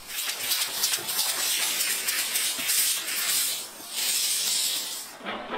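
Model-rocket motor in a homemade firework burning with a loud, steady hiss. The hiss dips briefly, then cuts off about five seconds in.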